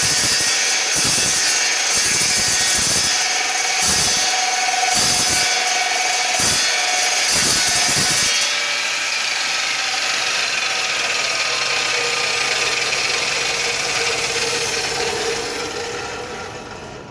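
Evolution Rage 2 chop saw's standard multi-purpose blade cutting through 1/2-inch steel flat bar: a loud grinding cut that pulses in strength. About eight seconds in, it gives way to a steadier running sound, which fades away near the end as the saw runs down.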